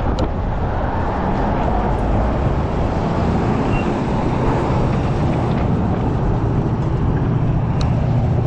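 Heavy wind rumble on the microphone mixed with road-traffic noise during an e-bike ride. A steady low hum grows stronger from about halfway through.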